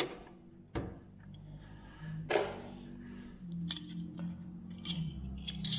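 Wrenches clinking against a hanger bolt and steel mounting bracket while a nut is loosened: several scattered sharp metallic clicks, more of them near the end, over a faint low hum.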